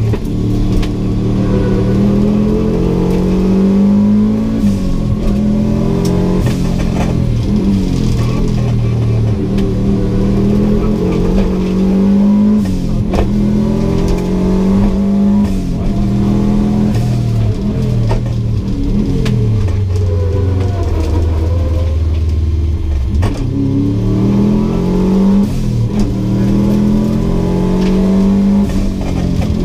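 Subaru GC8 WRX's turbocharged flat-four engine, heard from inside the cabin, revving hard through the gears. The pitch climbs and drops again and again with the shifts and lifts, with a few sharp clicks along the way.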